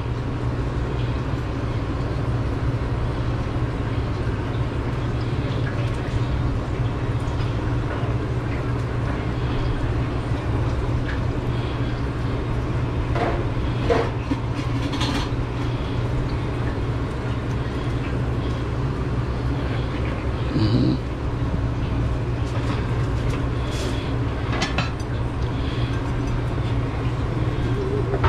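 Steady low drone of machinery running in a food truck kitchen, with a constant hum over it. Now and then there are light clinks and knocks of kitchen work, with a slightly louder clatter about two-thirds of the way through.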